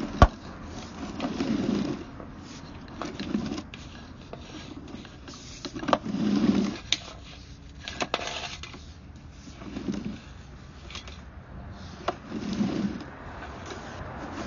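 A sewer inspection camera's push cable is fed by hand through a cleanout into a clay sewer pipe. It scrapes in short pushes every two to three seconds, with a few sharp clicks, the loudest one right at the start.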